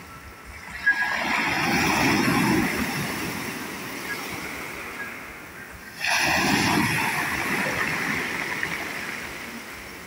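Sea waves breaking and washing up on a pebble beach, in two surges. The first comes about a second in, opening with a short sharp sound. The second breaks suddenly at about six seconds. Each rush of surf fades away over a few seconds.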